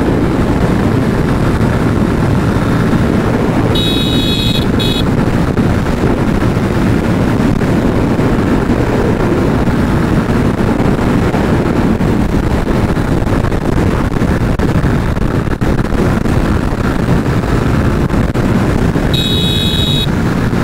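Steady road noise of a motorcycle ride at speed: engine hum and wind rushing over the microphone. A short high beep sounds twice, about four seconds in and near the end.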